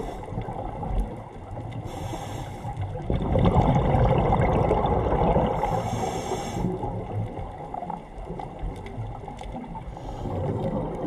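A diver's scuba regulator breathing underwater: hissing inhales and bubbling exhales, with the loudest bubbling from about three to seven seconds in.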